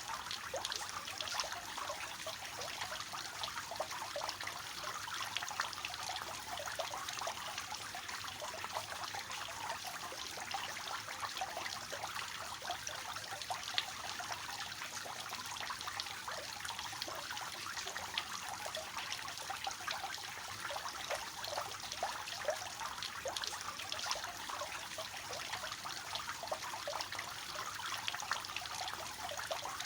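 Water falling from a three-tier cascade fountain, splashing and trickling steadily with many small drips and splashes.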